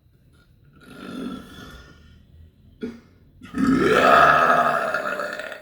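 A person burping on purpose: a softer burp about a second in, then a long, loud burp over the last two seconds.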